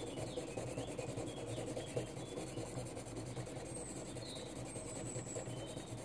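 Amethyst being ground by hand on a wet, rubber-backed 60/40 diamond lapping plate: a steady rubbing and grinding of stone on diamond grit.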